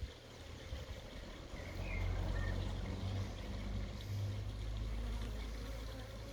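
A low rumble that swells about two seconds in and then eases, with honey bee scouts buzzing faintly around a swarm trap.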